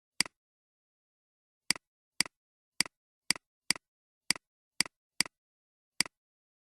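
Computer mouse clicking about ten times at uneven intervals, each click a quick double tick of button press and release.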